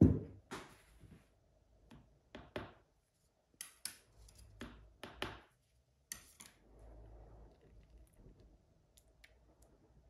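A sharp wooden knock as mould boards are set down on a workbench, followed by a series of lighter knocks and clicks from handling small objects, then faint rustling.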